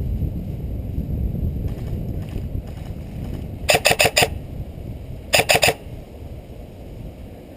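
Airsoft rifle firing two quick strings of shots, about four and then three sharp cracks in rapid succession, a second and a half apart.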